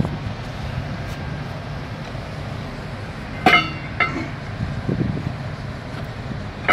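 Two sharp metal-on-metal clinks with a brief ring, about half a second apart midway, and another at the very end: steel parts of a bulldozer's sprocket and final drive being knocked together while handled. A steady low rumble runs underneath.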